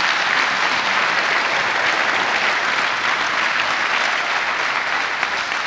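Audience applauding: steady, dense clapping from a large crowd, easing off a little near the end.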